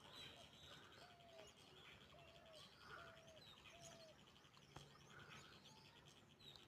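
Faint birdsong: one bird repeats a short arched call four times, about a second apart, with other small chirps around it.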